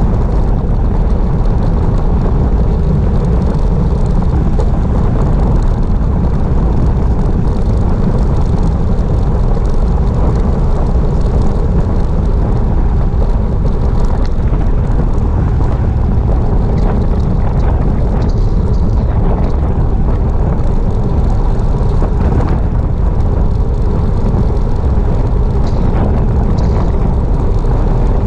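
Wind buffeting the microphone of a bicycle-mounted camera during a fast downhill ride: a loud, steady, deep rumble that does not let up.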